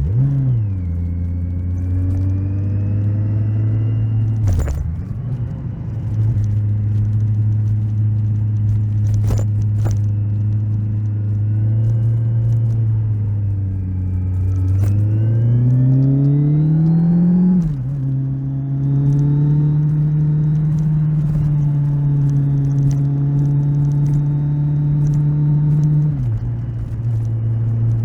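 Kawasaki Z1000SX's inline-four engine under way: revs drop sharply at a gear change about four seconds in, hold steady while cruising, climb steadily from about fourteen seconds to an upshift near eighteen, and drop again at another shift near twenty-six seconds.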